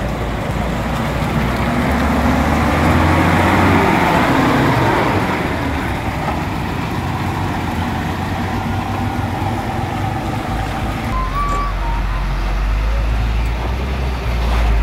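Heavy diesel vehicles crawling through floodwater: a coach's engine running with its note rising in the first few seconds, with tyre and water noise. A deep diesel idle comes in close by about eleven seconds in.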